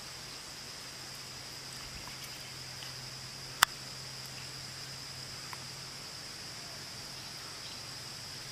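Steady high-pitched insect chirring, with a faint low hum underneath and one sharp click about three and a half seconds in.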